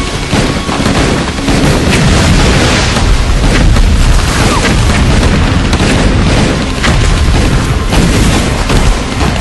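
A continuous firefight: dense rifle and machine-gun fire with booming blasts, rapid sharp shots layered over a heavy low rumble.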